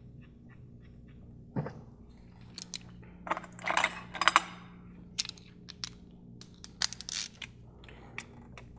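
Metal hand tools clinking, tapping and rattling against bolts and engine parts, with a single knock about a second and a half in and two bursts of quick clicks after it.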